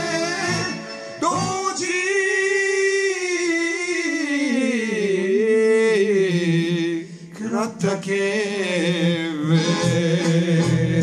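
Older man singing a slow Serbian-language song, drawing out long held notes with vibrato.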